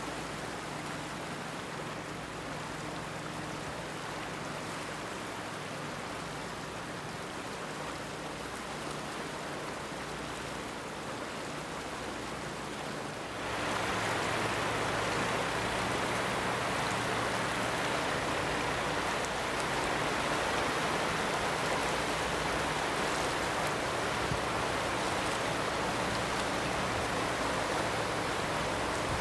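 Rushing floodwater of the swollen DuPage River, a steady hiss of moving water; about halfway through it gets louder and brighter and stays so.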